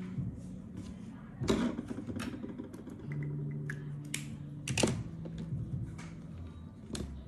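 Handling noise of a spiral notebook and pen on a desk: a few scattered sharp clicks and knocks, the loudest about a second and a half in and again near five seconds in.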